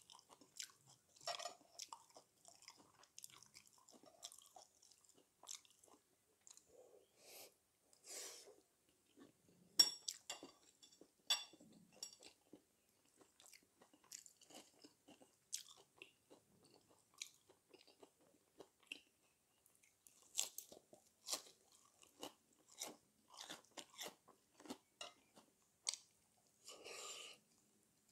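Close-up eating sounds: a man chewing and crunching mouthfuls of dak galbi, spicy stir-fried chicken with sweet potato, cabbage and kale, in quiet, irregular wet clicks and crunches. A few sharper clicks come from metal chopsticks against the cast iron dish.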